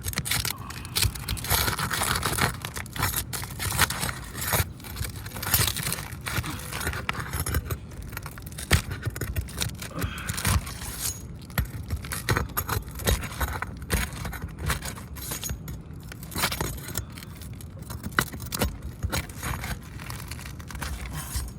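Hand tools scraping and clinking against old asphalt roof shingles as the shingles are lifted and the staples under them are pried out, with many short sharp knocks and rasps throughout.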